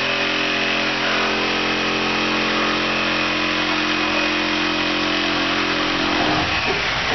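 A power tool's motor running steadily at constant speed, its hum breaking off about six seconds in.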